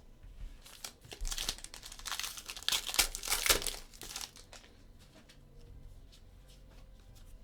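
Foil trading-card pack wrapper being torn open and crinkled, loudest in the middle few seconds, then a few faint ticks of cards being handled.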